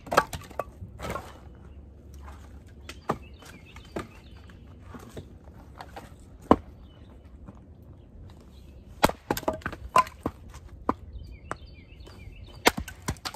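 Pine firewood being chopped and split into small sticks: separate sharp chops and cracks of wood, with a quick run of strikes about nine to ten seconds in and more near the end.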